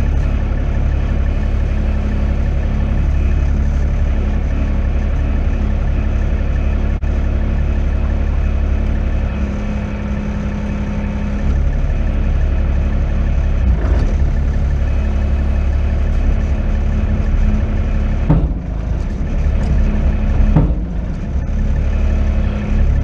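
A farm loader's engine running steadily, with a few brief knocks in the second half.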